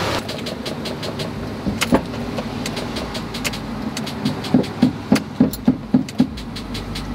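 Knocks and clicks from under the raised hood of a pickup with a dead battery as the battery cables are hit to try to restore contact. A run of about seven quick knocks, roughly three a second, comes past the middle, over a steady background rumble.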